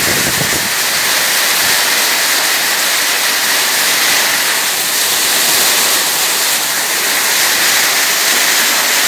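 Heavy rain pouring down steadily onto concrete, a loud even hiss of rainfall.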